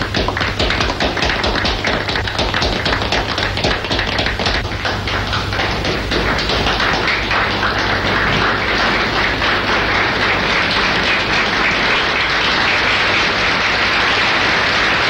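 Theatre audience applauding: separate claps at first, which thicken about six seconds in into a dense, even wash of applause.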